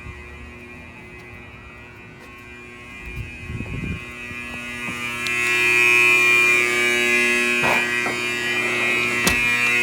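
Two 120-volt AC fire alarm horns, a Wheelock 31T-115 and an Edwards 374A Adaptahorn, sounding together with a steady, continuous buzz. It grows louder about five to six seconds in, and a few knocks come through near the end.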